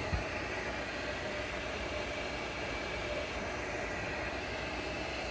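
TOS horizontal milling machine running with its table under power feed at a raised, middle feed rate: a steady mechanical running noise with a faint held tone. A short low thump sounds just after the start.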